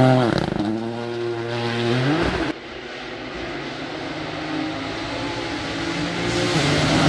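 Rally car engine passing at speed on gravel: the note drops as the car goes by, then climbs as it accelerates away, and cuts off abruptly about two and a half seconds in. After that a quieter engine is heard in the distance, growing louder near the end as a car approaches.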